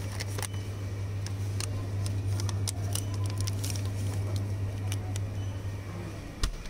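Plastic and foil chocolate wrappers crinkling and rustling as packs are picked up and handled, in a run of small crackles and clicks over a steady low hum. The hum stops near the end with a single thump.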